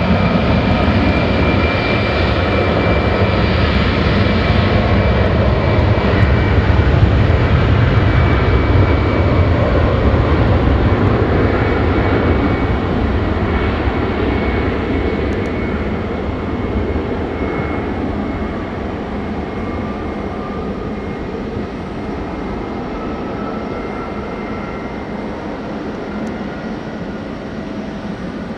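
Jet airliner's engines: a loud rumble with a steady high whine, peaking about seven seconds in and then slowly fading as the aircraft moves away.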